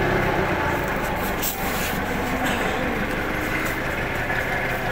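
Steady mechanical background noise, with rubbing and a few light knocks in the first couple of seconds.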